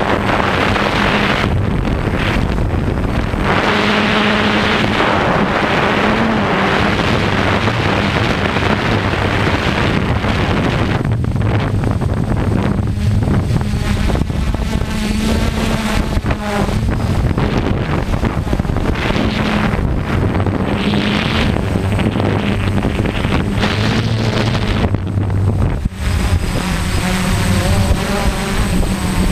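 Quadcopter's electric motors and propellers buzzing steadily, the pitch stepping up and down as the drone manoeuvres, with wind rushing over the microphone.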